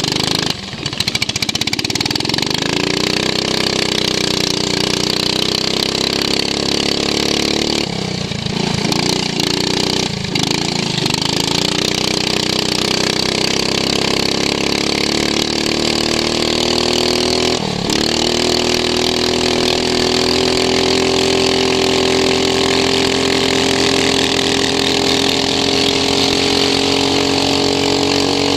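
Racing lawn mower engine running hard, heard onboard. The revs climb over the first few seconds, fall away and pick up again about eight seconds in, dip briefly once more about eighteen seconds in, then hold steady and high.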